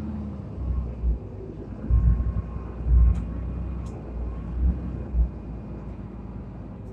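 Mitsubishi Fuso QKG-MP35FM city bus running, its diesel engine droning steadily, with several low thumps along the way.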